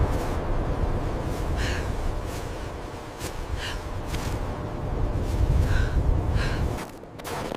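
Repeated short, breathy exhalations, about one a second, over a steady low rumble that drops away near the end.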